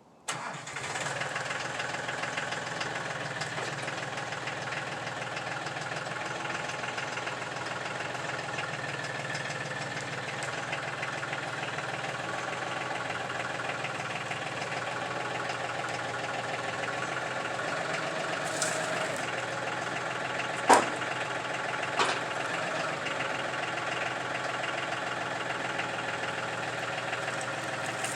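Tractor engine running steadily, cutting in abruptly at the start. Two sharp knocks land about 21 and 22 seconds in, the first the loudest sound.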